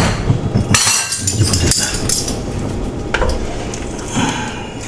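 Kitchen utensils and pots clinking and scraping during cooking, a sharp click right at the start and several short bursts of clatter after it.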